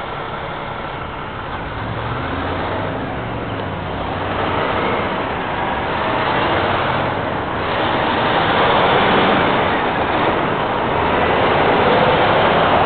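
Road traffic: cars going by on a busy street, the noise swelling and fading several times and growing louder toward the end, picked up by the built-in microphone of cheap camera sunglasses.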